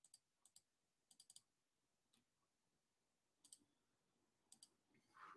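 Near silence with faint, scattered computer clicks, about ten in all, some coming in quick groups of two or three.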